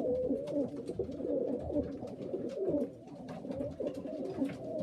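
Several stock pigeons (cock birds and hens) cooing together in a small loft, their low warbling coos overlapping throughout, with scattered light clicks.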